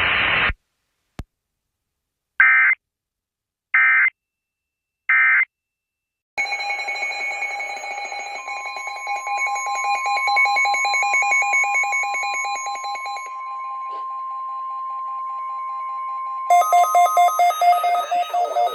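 NOAA Weather Radio emergency alert signals. Three short screechy SAME digital data bursts about a second and a half apart, typical of the end-of-message code. A weather radio receiver's harsh pulsing alarm beep follows, with the steady 1050 Hz warning alarm tone held beneath it for about nine seconds. Near the end the beeping changes to a louder, faster pulsing pattern.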